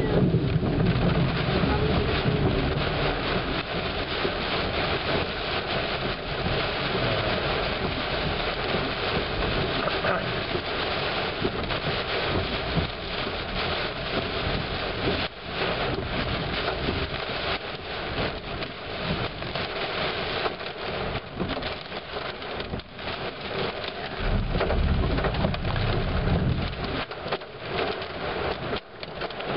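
Heavy storm rain pelting the roof and windshield of a moving car, heard from inside the cabin as a dense, loud patter of countless impacts. A low rumble swells near the end.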